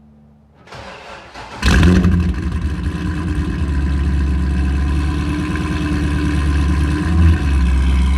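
Corvette C6 Z06's 7.0-litre LS7 V8 cranked by the starter, catching about a second and a half in, then running at a steady idle with a brief rise in revs near the end.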